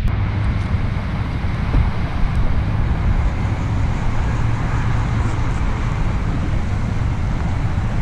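Wind buffeting the camera microphone over open water: a steady, loud low rumble with a hiss above it.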